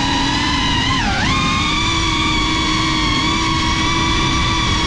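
FPV quadcopter's motors and propellers whining, with a rushing noise underneath. The whine's pitch dips sharply about a second in, then comes back up and holds steady.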